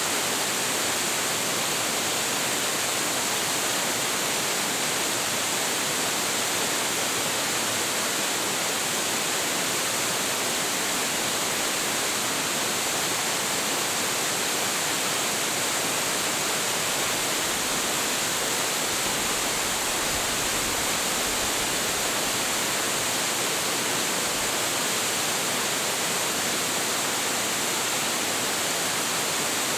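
A tall, high-volume waterfall, about 25.7 m high, running in a steady, unbroken rush of falling water, strongest in the hiss.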